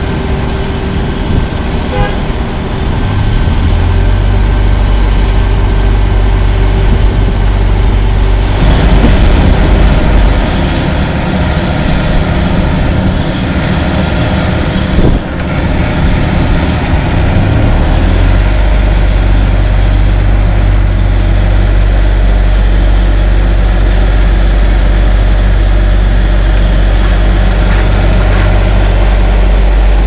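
LeeBoy 8515B asphalt paver's diesel engine running steadily, its note shifting a few times, with a single knock about halfway through.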